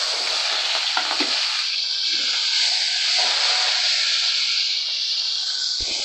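Ginger, green chillies and curry leaves sizzling and spattering as they hit the hot oil of a tempering in a steel kadai, a loud steady hiss. A ladle stirs through it, with a few short knocks against the pan.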